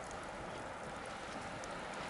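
Wood bonfire burning with a steady hiss and a few faint crackles.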